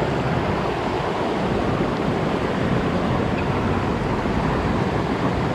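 Shallow river water flowing steadily over a rocky bed, an even rushing noise with no breaks.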